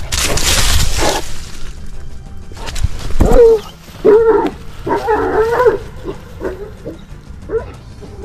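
Shepherd dogs barking and yelping, with a run of loud calls from about three to six seconds in and shorter, fainter yelps after; a rushing noise comes first.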